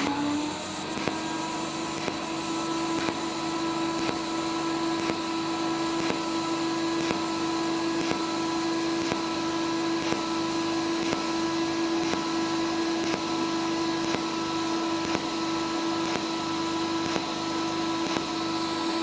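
TIG welding arc buzzing steadily in low-frequency pulse mode, with a brief pulse about once a second as the current jumps from base to peak. The short peak and low base current make it work almost like a repeating spot weld.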